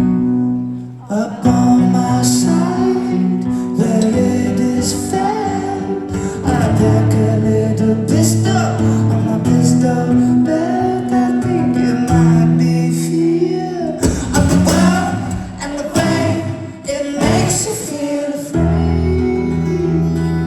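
Live rock band playing: guitar and cymbals with singing voices over the top.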